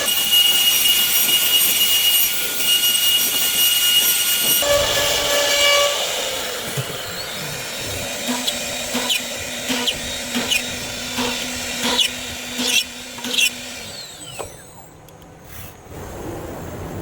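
CNC wood router cutting wood: the spindle gives a steady high whine over the cutting noise, and the sound changes about four and a half seconds in. Later comes a run of sharp clicks with a low steady hum under them for several seconds, and the sound grows quieter near the end.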